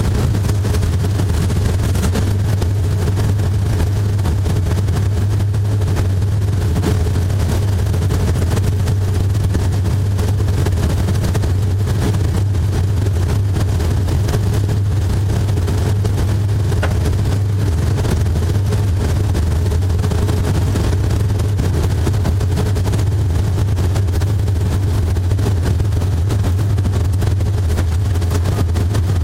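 Race car engine running hard under a steady low drone, heard from inside the car, with a constant dense rattle and buffeting over it.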